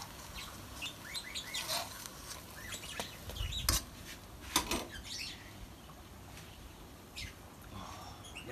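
A metal spatula knocks against an iron wok a few times, the loudest clinks about three and a half and four and a half seconds in, as a purple yam cake fries in oil. Birds chirp now and then in the background.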